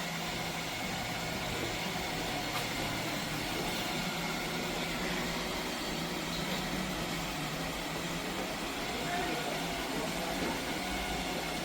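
Robot vacuum cleaner running: a steady whirring noise with a low hum.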